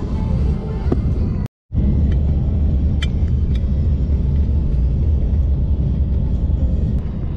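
Steady low rumble of a car's road and engine noise inside the cabin of a moving car. The sound drops out completely for a moment about a second and a half in, and a few light clicks come around three seconds in.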